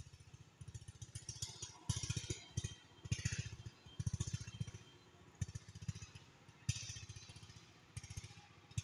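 Gusts of wind buffeting the microphone, with the leaves of the rice plants rustling as each gust passes. The gusts come in uneven surges about every second, the strongest about two, three, four and seven seconds in.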